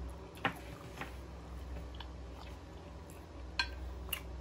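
Close-miked chewing of a mouthful of food, with a few sharp clicks of a plastic fork against the mouth and plate, the last pair as the fork scoops peas off the plate near the end.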